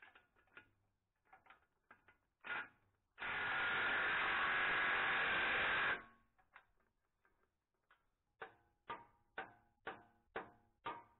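Ryobi cordless impact wrench hammering a bolt home through the steel plough beam in one run of about three seconds, with a spanner holding the nut. Light tool clicks come before it, and near the end there are six sharp metallic clinks about half a second apart.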